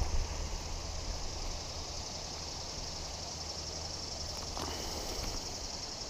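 Steady, high-pitched insect chorus in the riverside vegetation, over a low rumble that fades out about five seconds in.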